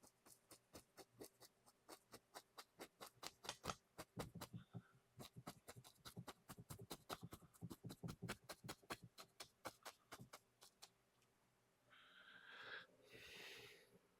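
Faint, rapid clicking taps, about four or five a second for some eleven seconds, as paint is worked on an oil-painting palette with a painting tool; a short breathy noise follows near the end.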